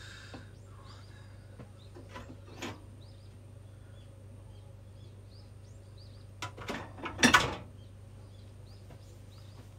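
Kitchenware being handled: a few light knocks around two to three seconds in, then a louder cluster of clatter around seven seconds in, over a steady low hum. Faint short chirps, likely birds outside, come and go in the background.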